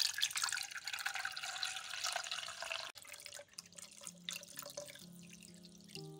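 Water running from a kitchen tap, cut off abruptly about three seconds in. Quieter light clicks follow, and soft music starts near the end.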